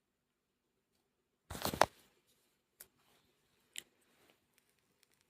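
Near silence broken about a second and a half in by a brief crackling, rustling noise, then two faint clicks a second apart.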